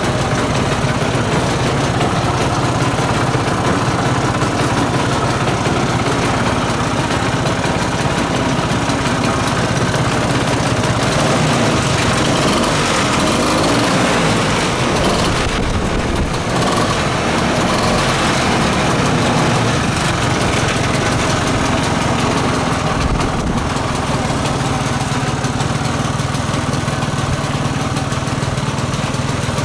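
Piaggio Ape 50 three-wheeler's small single-cylinder two-stroke engine running steadily.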